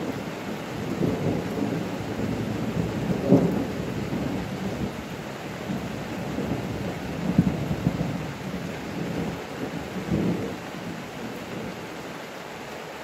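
Thunder rolling over falling rain, the rumble swelling about three seconds in, again around seven seconds and once more around ten seconds, then dying away near the end while the rain goes on.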